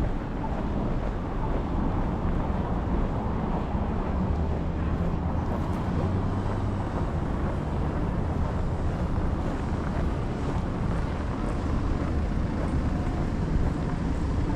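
Steady wind buffeting the microphone over a low rumble of street traffic.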